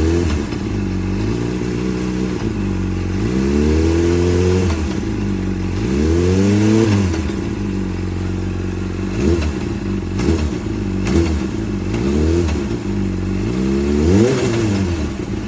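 Motorcycle engine idling and being revved again and again, the pitch climbing and falling back each time, with short sharp knocks as the revs drop. This is the odd knock that shows up when the throttle is closed.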